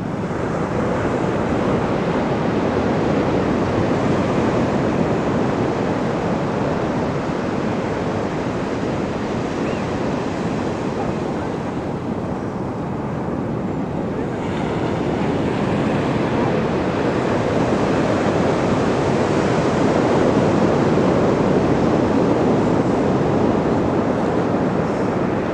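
Sea surf: waves breaking and washing up the shore in a continuous rush that swells, eases off about halfway through, and swells again.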